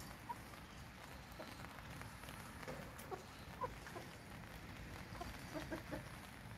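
Young chickens clucking softly while foraging: a dozen or so short, scattered clucks over a steady faint background hiss.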